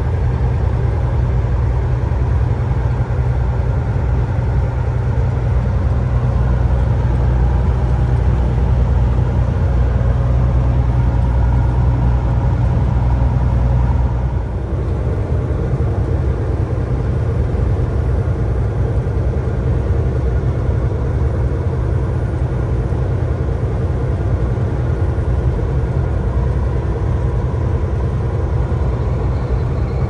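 A motor vehicle's engine running steadily with a low hum, its sound changing abruptly about fourteen seconds in.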